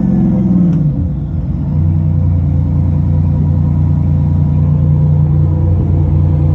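Detroit Diesel 6V71TA turbocharged two-stroke V6 marine diesel dropping back from a high-RPM run-up in neutral: its pitch falls over about the first second and a half, then settles into a steady low idle.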